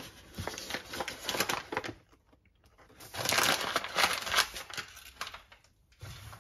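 Crinkling and rustling of packaging being handled, in two spells: a lighter one at the start and a louder one about three seconds in that fades out.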